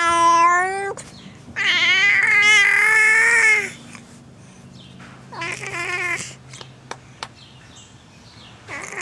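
Baby making silly, drawn-out squealing vocal noises: a call at the start, a longer one of about two seconds with a wavering pitch, a shorter one a few seconds later and another beginning near the end.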